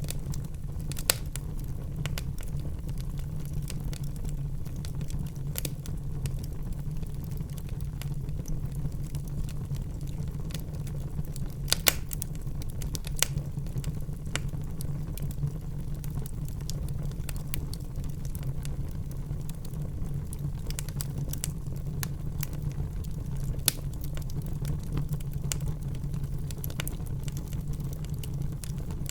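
Wood fire burning in a fireplace: steady low rumble with scattered crackles and sharp pops, the loudest pops about a second in, twice near the middle and once more later on.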